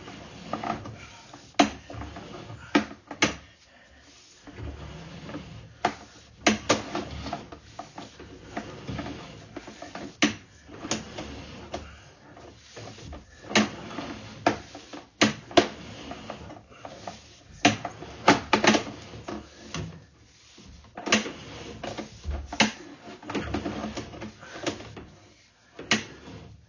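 Irregular knocks and clacks, some in quick pairs, over a low rumble, as a sewer inspection camera's push cable is fed through a drain pipe.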